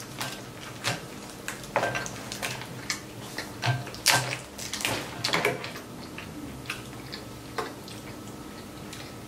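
Close-up eating sounds: chewing, lip smacks and irregular wet clicks as crab legs and egg rolls are dipped in Alfredo sauce and bitten.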